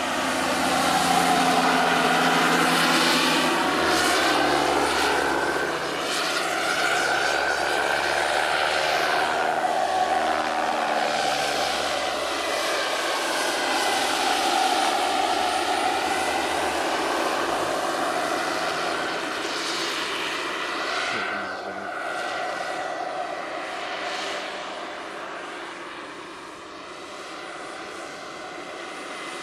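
Turbine engine and rotor of a scale model EC-145 helicopter in flight: a steady whine and rotor noise whose tone sweeps up and down as it passes back and forth, growing quieter near the end.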